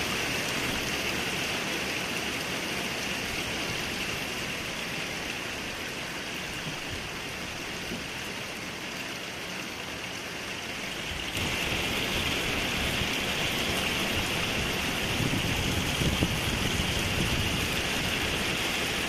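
Heavy thunderstorm rain pouring steadily, with a sudden step up in loudness about eleven seconds in.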